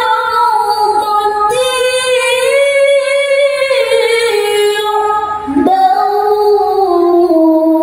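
Male qari reciting the Qur'an in the melodic tilawah style, drawing out the word 'rawdatin' in one long, ornamented, held vocal line with wavering turns. About five and a half seconds in, the line breaks briefly, then carries on lower and steps down toward the end.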